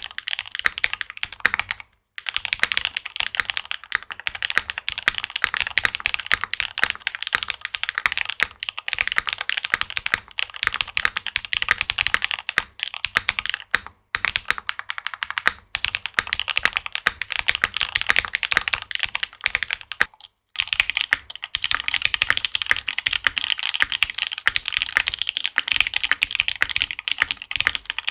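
Continuous fast typing on a Monokei Kei R2 custom mechanical keyboard with lubed switches. It is a steady clatter of key strokes, with a few brief silent breaks and a brighter key sound after the break about two-thirds of the way in.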